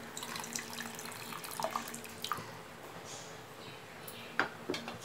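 Cornflour slurry being poured from a small bowl into soup in a pressure cooker and stirred in: soft liquid splashing with a few light clicks and ticks.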